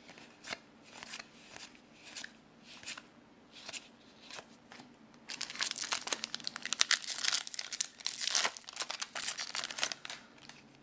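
Trading cards being slid and flipped through by hand with soft ticks. About five seconds in comes loud, busy crinkling and tearing as a foil Harry Potter TCG booster pack wrapper is ripped open.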